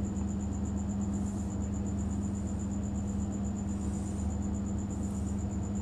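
Room tone: a steady low electrical hum with a thin, steady high whine. Twice there is a faint soft hiss of a marker being drawn across a whiteboard.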